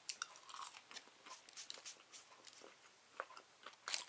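Close-up chewing of a bite of fast food, likely a Wendy's fry: faint, irregular mouth clicks and smacks, with a louder cluster of clicks near the end.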